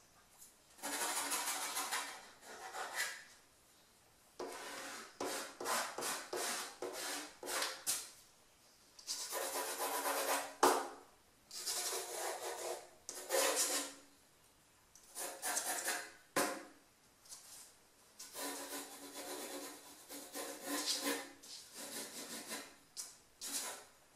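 Pencil sketching on drawing paper: scratchy strokes in runs of one to a few seconds, with short pauses between.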